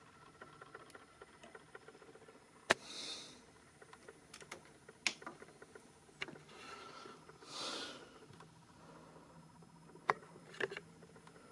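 Quiet room tone broken by about half a dozen scattered sharp clicks, with two brief soft hissing swells and a faint low steady hum coming in near the end.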